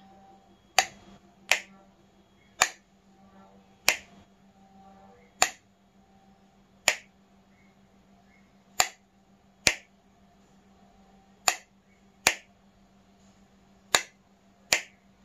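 Sharp clicks of a wall-type switch on a plug board, flicked on and off over and over to switch a repaired LED bulb. There are twelve clicks, often in pairs, about one to two seconds apart.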